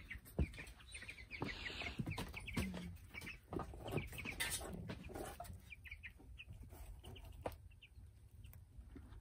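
Young chicks in a brooder cheeping: many short, high peeps, with a few sharp knocks among them, the loudest just after the start.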